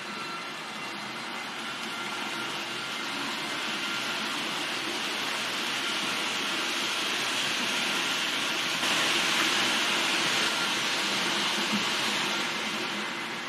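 H0-scale model freight train, a Roco Taurus electric locomotive with eight four-axle tank wagons, rolling along the track: the rattle of wheels on rails grows louder, is loudest about nine to twelve seconds in, then eases off as the train passes, with a faint steady whine underneath.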